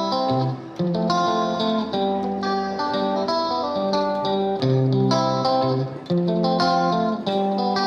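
Intro music led by a plucked guitar, playing a repeating pattern of notes.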